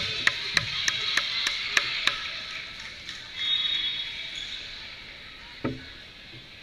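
Crowd in a gym clapping in unison, about three claps a second, over fading cheers; the clapping stops about two seconds in. A referee's whistle sounds briefly near the middle, and a single volleyball strike comes near the end.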